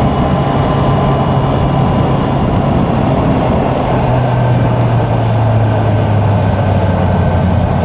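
2018 Honda CB650F's inline-four engine running at road speed, with wind noise on the microphone; the engine note drops to a lower pitch about four seconds in and holds there.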